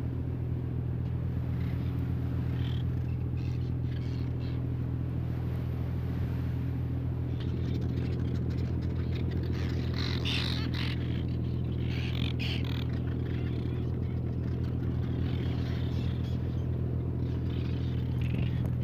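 A longline fishing boat's engine running steadily with a low hum, with short seabird calls breaking in now and then, most around the middle.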